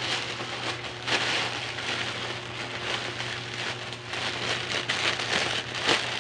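Clear plastic packaging crinkling and rustling as it is handled and pulled open, a busy crackle of many small sharp sounds that swells and eases.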